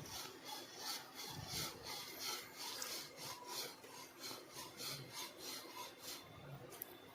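A spoon stirring and scraping around a saucepan of hot milk to dissolve the sugar, in short, even strokes about three a second.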